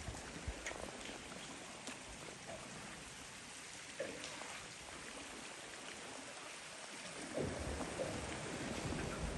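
Faint, steady splashing hiss of small sea waves lapping against the rocks and the hull of a drifting boat, with a few soft knocks and a slightly louder stretch of splashing near the end.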